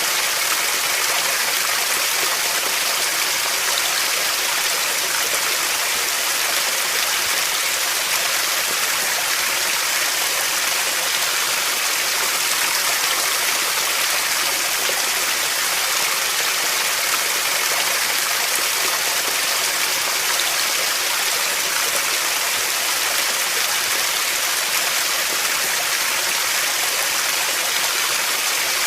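Running water: a steady, even rush of a stream or small waterfall, hissy and bright with little low rumble, unchanging throughout.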